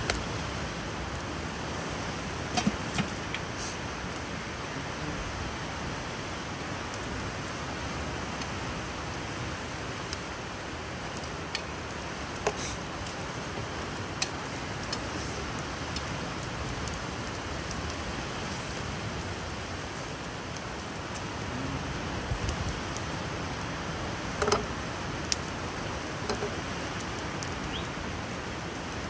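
Steady outdoor background noise, even and hiss-like, with a few sharp clicks and taps scattered through, the clearest about two and a half seconds in and near the end.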